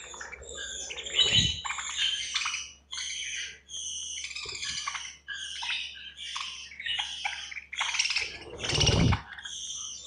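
A flock of budgerigars chattering with dense, overlapping chirps and warbles as they feed. Two louder soft bursts come through, one about a second in and one near the end.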